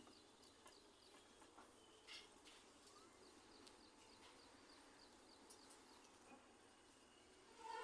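Faint outdoor ambience with a steady series of faint, high chirps about three a second and a few soft clicks.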